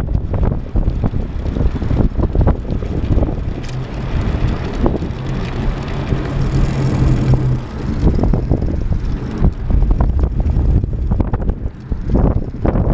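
Wind buffeting the microphone of a camera mounted low on a moving bicycle, with frequent knocks and rattles from the bike and the unsprung camera mount jolting over the road. A low steady hum comes in for a few seconds midway.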